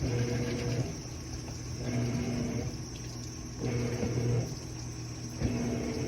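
General Electric washing machine agitating: the drive motor hums in short strokes, each under a second long, coming about every two seconds, four times.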